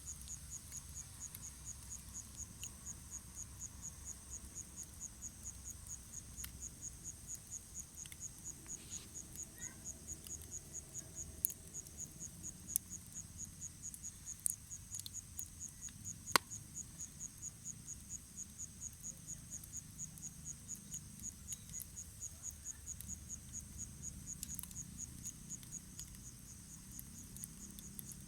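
Campfire crackling with a few sharp pops, the loudest about sixteen seconds in, over a low rumble. Throughout, an insect chirps steadily in high-pitched pulses, about three a second.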